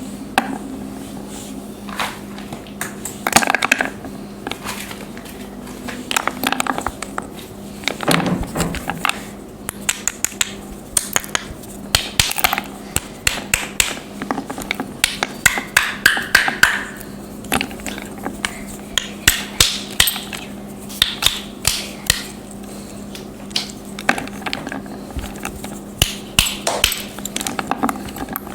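Chunks of khadiya mitti, a soft white chalky clay, being crumbled and crushed: a run of crisp, irregular cracks and snaps, some in quick clusters, over a faint steady hum.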